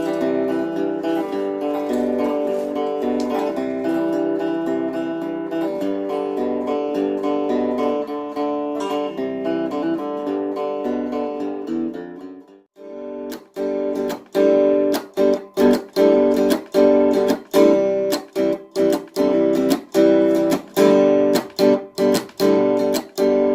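Four-string semi-hollow custom guitar, tuned EADG, played through a Roland Micro Cube amp with its onboard effects. Sustained, ringing chords for about the first half, a brief drop-out, then sharp, evenly spaced strummed chords about twice a second.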